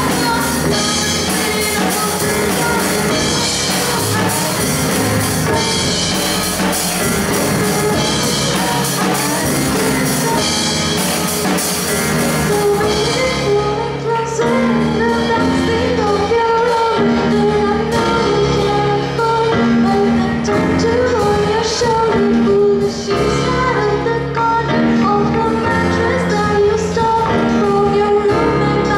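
Live band playing a pop-rock song, with a woman singing lead over drum kit, bass guitar, acoustic guitar and keyboard. About halfway through, the full, cymbal-heavy sound thins out to a lighter backing under the voice.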